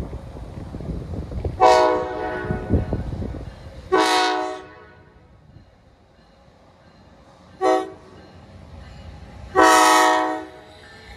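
NJ Transit ALP-45DP locomotive's air horn sounding the grade-crossing signal as the train approaches: two long blasts, one short, then a final long blast. Wind rumbles on the microphone during the first few seconds.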